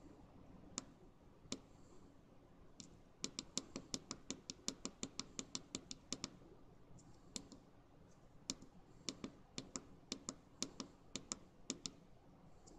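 Small tactile push-button switches pressed over and over to step the real-time clock's year setting, each press a sharp click: a few single clicks, then a fast run of about seven a second about three seconds in, then slower, scattered presses.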